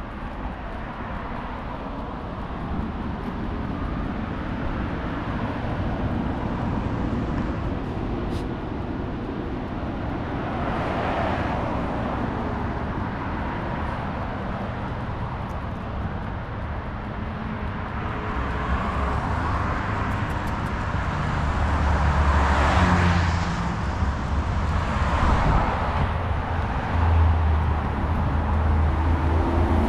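Outdoor road-traffic noise, with several vehicles swelling past and fading away. A heavy low rumble grows stronger in the second half.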